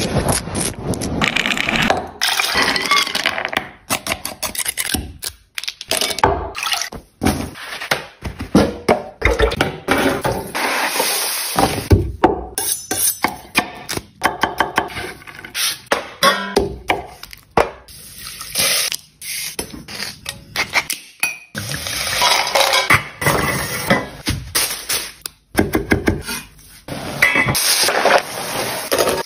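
A run of close-up food-preparation sounds: mussel shells clinking and scraping as a hand pulls them off a rock, then many sharp taps and crunches of a shallot being worked on a wooden board, and near the end the steady hiss and crackle of oil frying in a deep-fryer basket.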